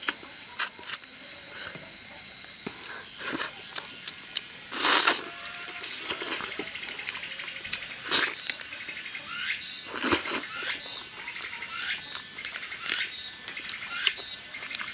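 Wet mouth sounds of gnawing meat off a braised duck held in the hands: short smacks and sucks, irregular and about once a second. Underneath is a steady chirring of insects.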